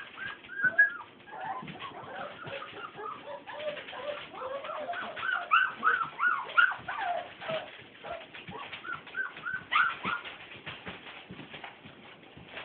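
Young puppies whimpering and squeaking in many short, high cries that rise and fall in pitch, busiest in the middle and thinning out near the end.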